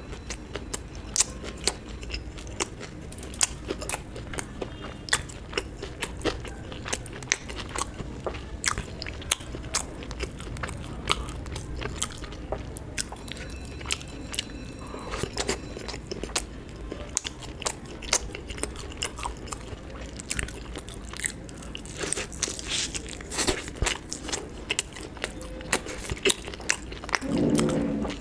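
Close-miked chewing and biting of food, with many sharp wet mouth clicks. A brief louder low sound comes near the end.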